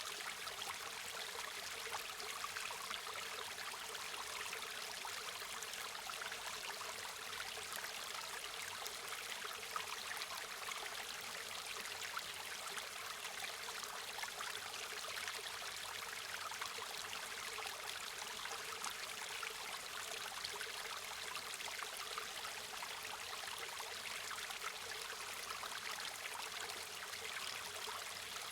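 A river or stream flowing steadily, a constant rushing hiss of water with fine trickling and splashing detail.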